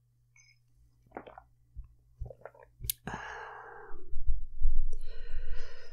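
A few soft clicks, then a breathy exhale like a sigh about three seconds in, with low rumble on the microphone and another breathy sound near the end.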